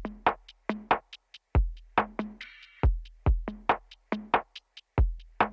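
Background electronic music: a drum-machine beat of deep kick drums, snare hits and hi-hats, with a short swishing sweep about halfway through.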